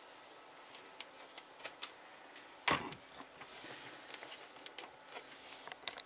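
Small clicks and scraping of a screw being driven into the metal drive bay of a computer case, with one sharper knock about three seconds in.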